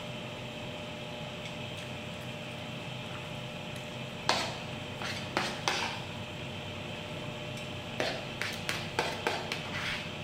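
Metal spoon clinking and scraping against a dinner plate: one sharp clink about four seconds in, two more a second later, then a quick run of lighter clinks near the end, over a steady background hum.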